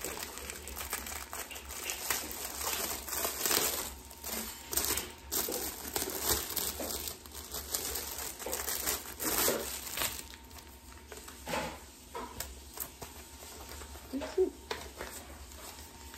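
Plastic candy bags and wrappers crinkling and rustling as candy is handled and packed. The rustling is busy for about the first ten seconds, then thins out to a few scattered crinkles and clicks.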